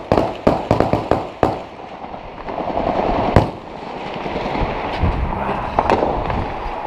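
Gunfire in urban combat: a quick, uneven string of about seven shots in the first second and a half, then two single shots further in, over a steady rushing noise.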